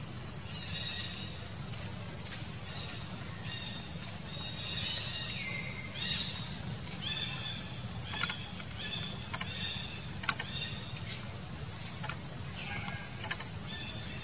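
Macaque calls: short high squeaks repeated many times, some sliding down in pitch, over a steady high hiss. A sharp click sounds about ten seconds in.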